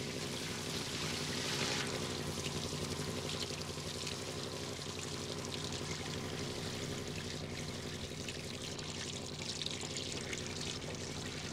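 Fuel pouring out of a crushed car's ruptured tank and splashing steadily onto a concrete floor, with a steady low hum underneath.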